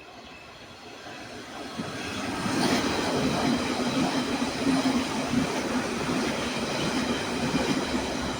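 London Underground train passing on the open-air track, growing louder over the first couple of seconds and then running loud and steady with a low hum.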